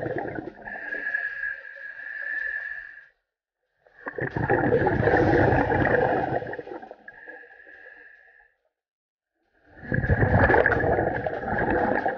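Scuba diver breathing through a regulator underwater: rushing bursts of exhaled bubbles alternating with hissing inhalations that carry a steady whistle-like tone, a little over two breaths with short silent pauses between them.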